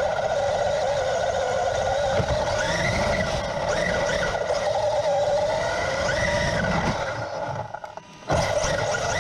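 Traxxas UDR RC truck's brushless electric motor whining, its pitch rising and falling with the throttle, over rumbling tyre and ground noise. Near the end the sound drops away for about a second, then comes back abruptly.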